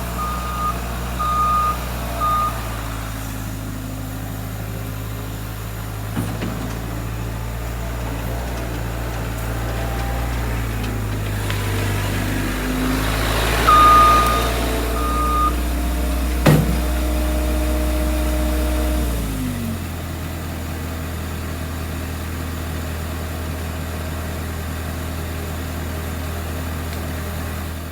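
Bobcat skid-steer's diesel engine running under working throttle, its back-up alarm beeping while reversing at the start and again about halfway through. Near the end the engine drops down to idle.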